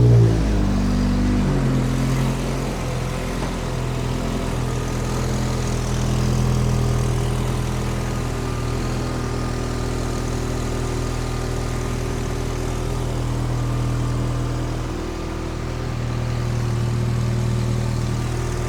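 Nissan SR20DET turbo four-cylinder running just after start-up on freshly fitted main and rod bearings. Its revs fall over the first two seconds, then it settles to a steady idle with no knocking.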